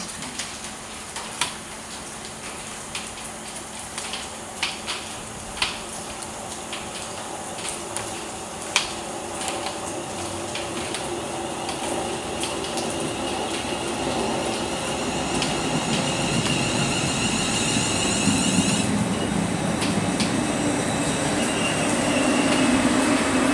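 A train approaching on the rails, its noise building steadily. There are sharp clicks in the first several seconds, and a high whine of several pitches from about halfway in that stops suddenly.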